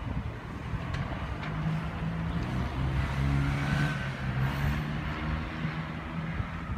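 A motor vehicle passing out of sight: a low engine hum that swells to a peak a few seconds in, then fades.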